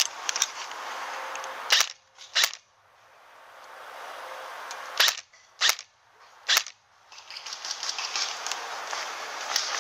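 Five sharp single shots from an airsoft replica rifle: two about two seconds in, then three more between five and seven seconds. A steady hiss runs under them and drops away in the gaps around the shots.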